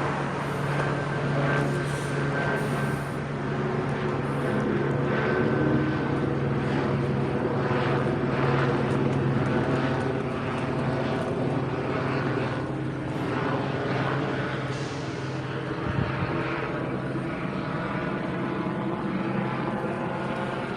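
Steady engine drone, a low even hum that holds throughout without rising or falling.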